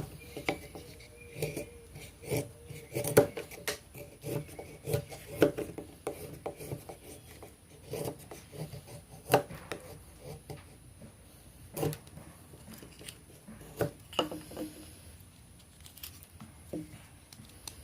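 TOPS Bull Trout fixed-blade knife carving hard seasoned oak: a string of short scrapes and knocks at uneven spacing as the blade bites into the wood.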